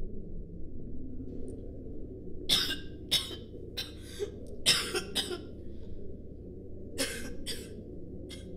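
A person coughing: about seven short coughs, mostly in pairs, with a single one near the end. Underneath runs a low, muffled background rumble.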